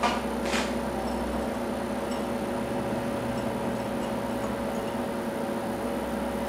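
A steady background hum, with a couple of light metal clicks right at the start and about half a second in, as a small squeezed metal spacer strip is fitted into place.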